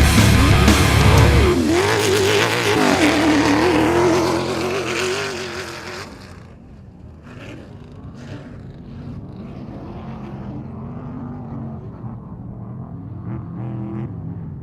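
Off-road race vehicle engine revving, its pitch wavering up and down, with a heavy music bass underneath that drops out about a second and a half in. About six seconds in the sound turns duller and quieter, leaving an engine running steadily.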